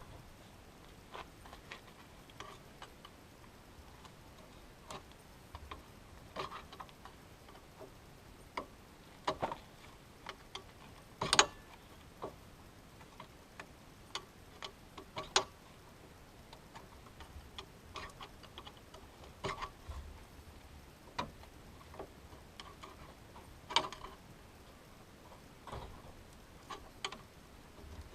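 Scattered sharp clicks and knocks at irregular intervals, the sound of hand tools being handled and set down during tie-rod end work. The loudest knock comes about 11 seconds in and another strong one near 24 seconds.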